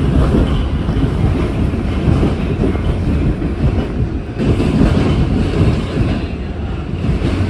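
R46 subway car running through a tunnel, heard from inside the car: a loud, steady rumble of wheels on rail, easing briefly about four seconds in.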